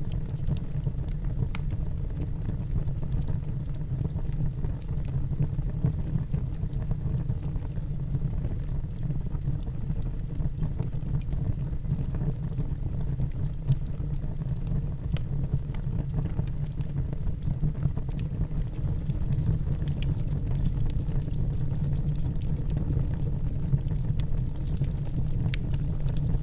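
Wood campfire burning with a steady low rumble and scattered sharp crackles and pops from the burning firewood.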